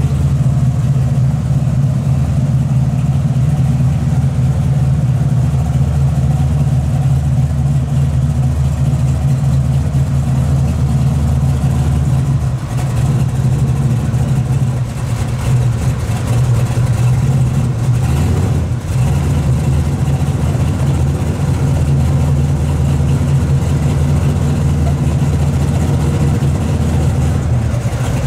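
1971 Chevrolet Camaro pro street car's engine idling steadily.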